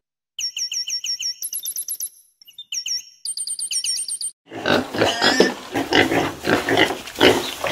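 A run of rapid, high-pitched chirps, repeated in quick series with a brief break, then a litter of piglets grunting and squealing from a little past halfway.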